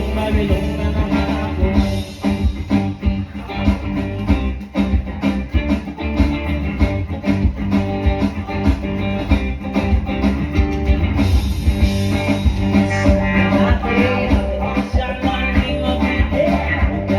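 Live band playing a rock song with guitar and drum kit, with singing.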